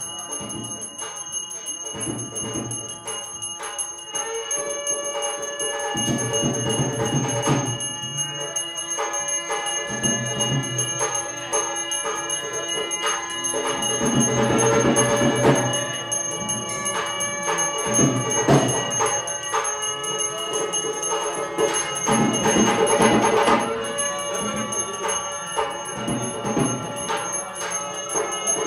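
Temple bells ringing continuously with rapid, overlapping strikes for the maha puja, over accompanying devotional music.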